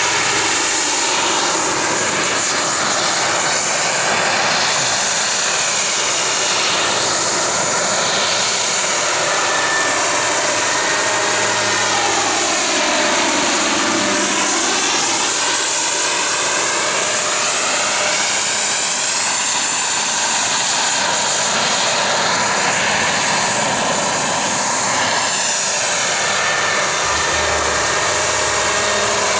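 Hughes 500 helicopter flying close by: a steady, high-pitched engine and rotor whine whose pitch sweeps down and back up as it passes, about halfway through.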